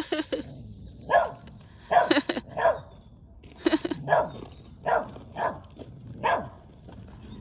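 Dog barking: about nine short barks at uneven spacing, ending a little after six seconds in.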